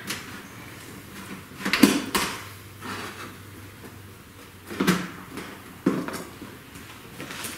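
Sheet-metal front panel of a homemade powder coating oven being handled and lifted off, thin metal clanking and rattling in four or five sudden clatters, loudest about two seconds in.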